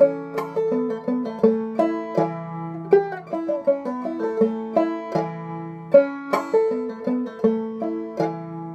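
Five-string banjo played clawhammer style in A: a steady run of plucked notes over ringing open strings, the second part of an old-time fiddle tune.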